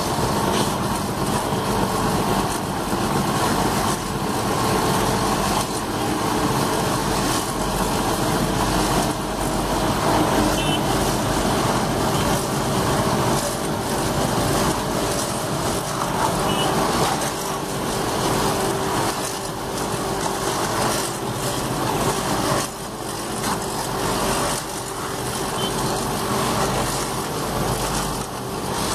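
Truss screed vibrator running steadily, its motor and vibrating beam giving a continuous mechanical drone with scattered rattles.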